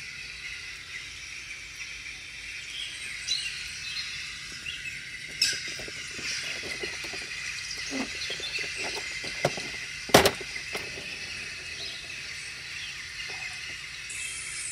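A few scattered sharp clicks and taps, the loudest about ten seconds in, over a steady high hiss with faint chirps.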